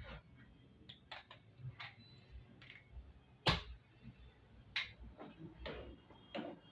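Irregular clicks and knocks of tools and metal engine parts being handled while working on a motorcycle engine, with a sharper knock about halfway through.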